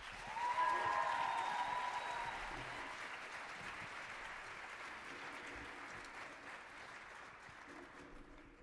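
Theatre audience applauding as a song ends: the clapping starts abruptly, is loudest in the first two seconds, then slowly dies away. A high-pitched cheer rises over it near the start.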